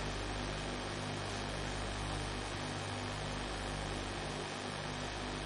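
Steady low electrical hum with an even hiss under it, the background noise of the recording, with no speech.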